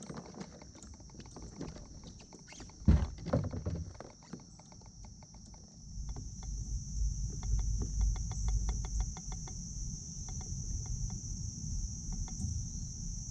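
Kayak paddle being handled and laid across a plastic fishing kayak, knocking on the hull, loudest about three seconds in, under a steady high insect buzz. From about six seconds a low rumble sets in, with a run of fast ticks.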